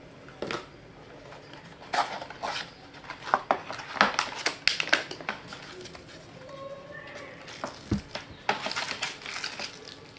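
A cardboard box being opened and its contents handled: irregular rustling and crinkling of a plastic anti-static bag and paper sleeves, with small knocks of cardboard. The handling comes in bursts about two seconds in and again near the end.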